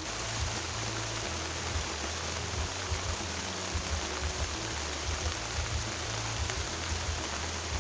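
Heavy rain falling steadily, an even hiss with an irregular low rumble underneath.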